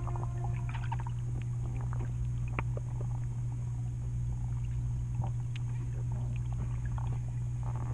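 Underwater sound of a swimming pool picked up by a submerged phone: a steady low hum with scattered small clicks and crackles.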